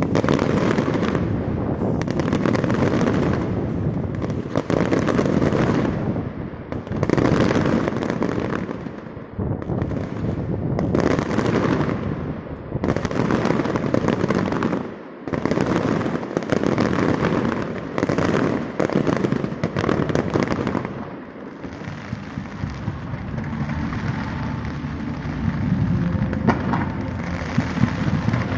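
Aerial fireworks bursting in rapid succession. The bursts come in waves a second or two long with brief dips between them, and a spell of many small sharp crackles near the end.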